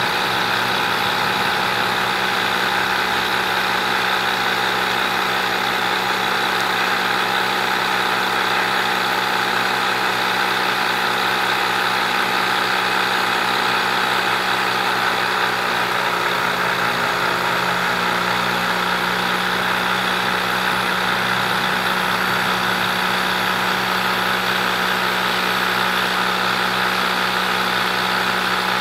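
Small electric motors on top of a downdraft wood gasifier running with a steady mechanical hum and an even hiss.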